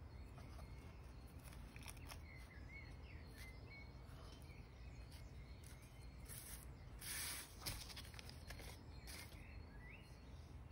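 Quiet room with faint rustles and light taps of paper cut-outs being lifted off a collage on a tabletop. There is a brief louder rustle about seven seconds in.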